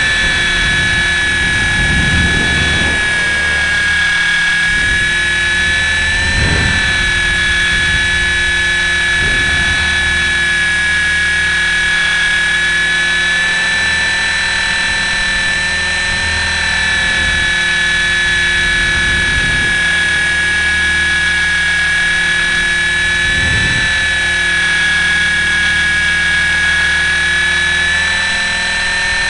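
Electric RC helicopter's motor and gears whining steadily over the rotor noise, heard from a camera on its frame, with wind rumbling against the microphone. The whine dips and rises slightly in pitch a few times as it manoeuvres.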